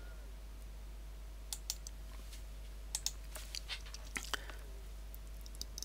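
A dozen or so irregular sharp clicks from a computer's mouse and keyboard, starting about a second and a half in, over a faint steady hum.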